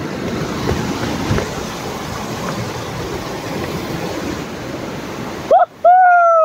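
Steady rush of a mountain stream tumbling over boulders in white-water rapids. Near the end the water sound cuts out abruptly and a held high-pitched tone sounds for about a second, dipping slightly at its end.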